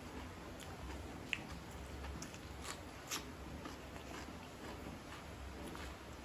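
A person chewing food: wet smacking mouth sounds with many small clicks, and two sharper clicks, one just over a second in and one about three seconds in.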